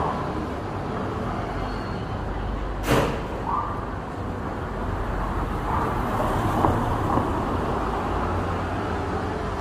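Street traffic: a car driving close by along a narrow street over a steady low rumble of traffic, with one short, sharp noise about three seconds in.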